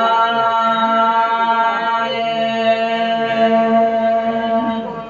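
Folk chanting in long held notes over a bowed folk fiddle, the melody sustained with little break.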